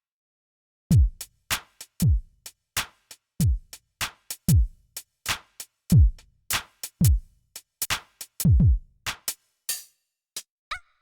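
Drum machine beat from the Korg Triton Extreme VST: a deep kick drum that drops in pitch on each hit, about once a second, with sharp snare and hi-hat hits between. It starts about a second in and stops shortly before the end.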